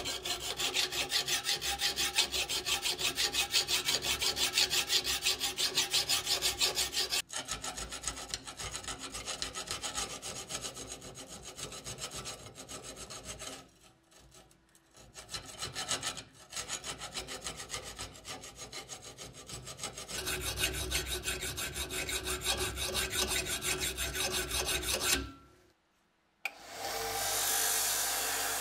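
Flat hand file rasping along the rusty steel blade of a 1913 bayonet clamped in a vise, in quick, even strokes with a few short pauses. Near the end, a grinding wheel runs steadily with the blade held against it.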